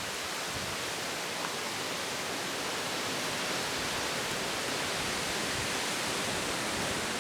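Wind blowing steadily, an even rushing hiss that swells slightly.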